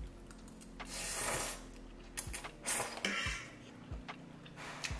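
A fork clinking and scraping against a plate, with a few soft, short noisy sounds of someone eating between the clinks.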